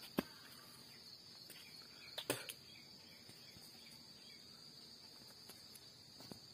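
Faint, steady high-pitched drone of insects, with two sharp clicks, one just after the start and one a little over two seconds in.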